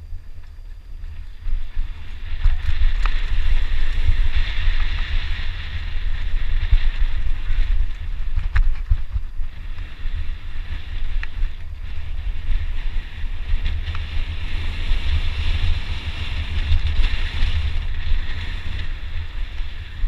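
Downhill mountain bike descending a rough trail: wind buffeting the microphone over the rumble and rattle of the bike going over rough ground, with a few sharp knocks. It gets louder about a second and a half in as the bike picks up speed.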